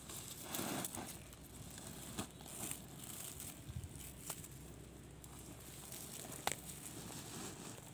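Irregular rustling and crinkling of cut grass and a woven sack as the greens are pulled and stuffed in, with a few sharp clicks.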